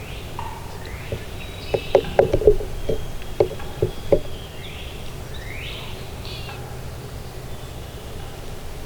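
Songbirds calling, with short high whistled notes that slide downward. Between about two and four seconds in comes a louder series of about a dozen short, sharp low-pitched notes or knocks.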